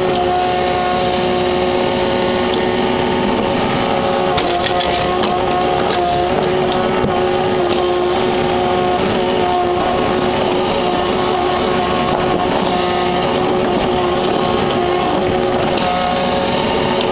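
Kubota KX61-3 mini excavator's three-cylinder diesel engine running steadily at working revs, with a droning hum of several held tones. A few short knocks come about four to five seconds in.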